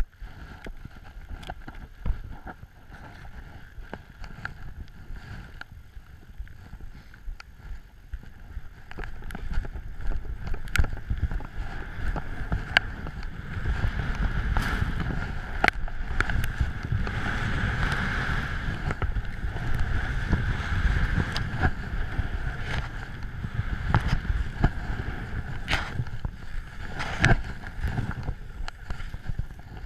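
Wind rumbling on an action camera's microphone and skis rushing through powder snow on a descent, louder through the middle, with scattered sharp clicks and knocks.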